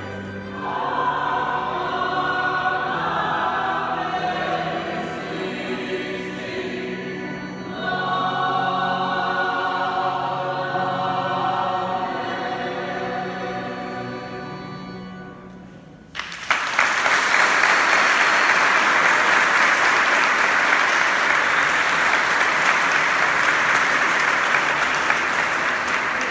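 Church choir singing; the song fades out quietly about sixteen seconds in. The audience then breaks into applause, louder than the singing.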